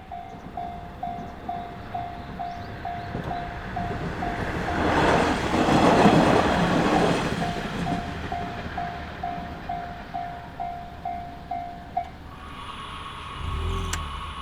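Japanese railway level-crossing warning bell ringing about twice a second while a short diesel train passes. The train's noise swells to a peak about six seconds in and fades. The bell stops about twelve seconds in.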